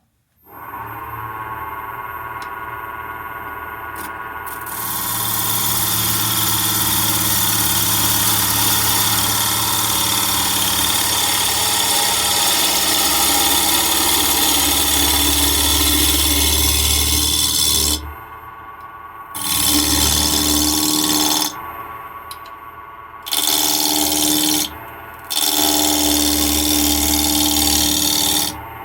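Wood lathe starting up and spinning a square mahogany block. About four seconds in, a bowl gouge starts cutting the spinning wood with a loud, steady cutting sound. The cut breaks off briefly three or four times near the end while the lathe keeps running.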